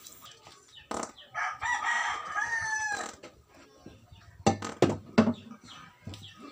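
A rooster crows once, starting about a second in and lasting nearly two seconds, its pitch falling at the end. Around it come several sharp knocks and bumps, the loudest a little after the crow, from hands working inside a wooden speaker cabinet.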